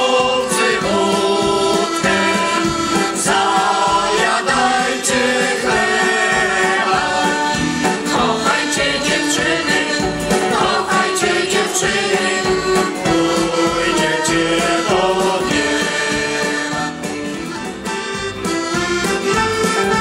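Mixed folk choir of men and women singing a folk song together, accompanied by a piano accordion.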